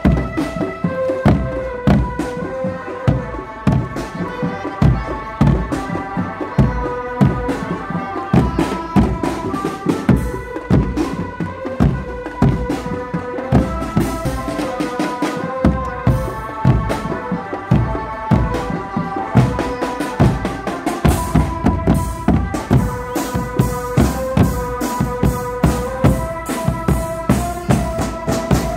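Drumband playing: a row of large bass drums and marching drums beating a fast, driving rhythm, with a high-pitched melody repeating over the drums.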